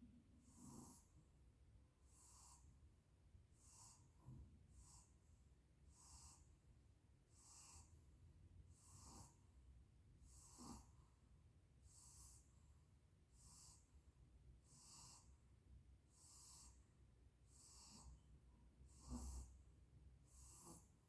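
A dog breathing faintly and evenly while resting, a soft breath about every three-quarters of a second. A low thump comes near the end.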